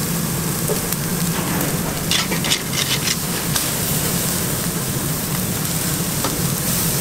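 Thick tomahawk and T-bone steaks sizzling on a grill grate over glowing coals, fat crackling as it drips into the fire, with a cluster of sharper pops and crackles about two to three seconds in.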